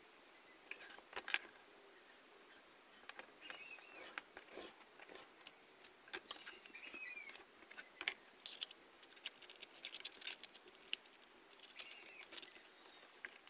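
Faint scattered taps, clicks and rustles of card and paper being handled and shifted against steel rulers on a table top. Three short high chirps sound in the background, about three and a half seconds in, near the middle and near the end.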